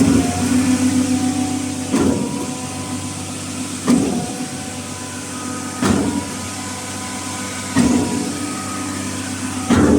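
Diesel concrete pump running steadily, with a sharp knock about every two seconds as the pumping cylinders change stroke.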